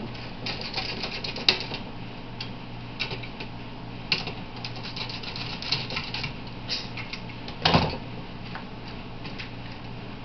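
Small irregular clicks and taps of a screwdriver working screws out of a circuit board inside a digital TV converter box, with a sharp click about a second and a half in and a louder clunk about three-quarters of the way through, over a steady low hum.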